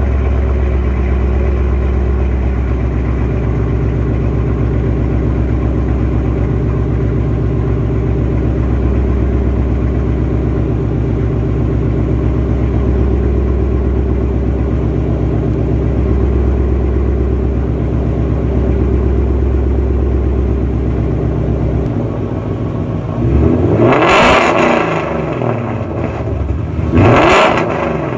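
A 2015 Ford Mustang GT's 5.0-litre V8 idles steadily through catless longtube headers, a custom X-pipe and Flowmaster Outlaw mufflers after sitting overnight. About 22 seconds in the idle note changes, and it is then revved twice in short sharp blips near the end.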